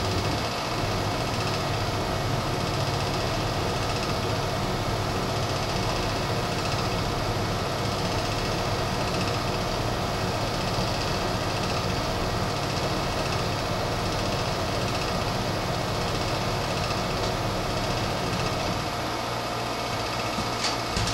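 Rung Fu RF-45 clone mill-drill converted to CNC, running a warm-up program with no cutting: a steady mechanical hum of the axis drive motors and machine with a few constant tones. The low part of the hum drops out near the end, and a short sharp click comes right at the end.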